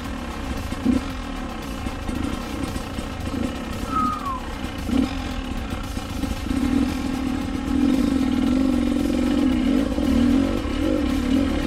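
Dirt bike engine revving in short throttle blips, then held at higher, steadier revs from about six seconds in.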